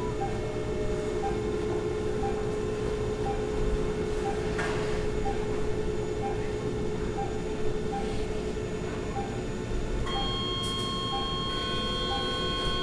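Hospital machine ambience: a steady electronic hum over a low rumble, with a short soft beep about once a second. Around ten seconds in, several higher steady tones join the hum.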